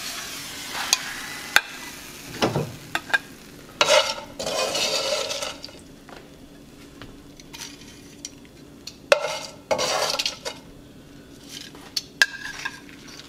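Corn tortillas frying in chili oil in a pan, sizzling, with tongs clicking and scraping against the pan and a ceramic plate as they are lifted out. The sizzle and scraping swell twice, about four and nine seconds in.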